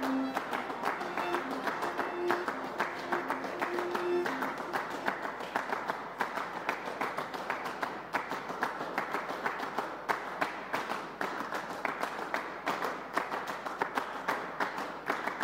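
Fast, busy runway music driven by a dense clatter of quick, sharp percussive strokes, with a few held notes in the first seconds.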